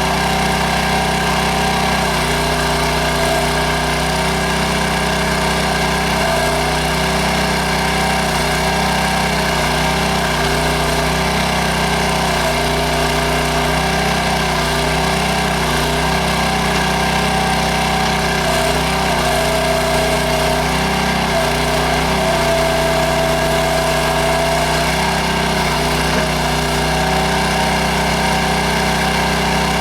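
Small gas engine of a towable backhoe running steadily, its tone shifting up and down every second or two as the hydraulics are worked while digging.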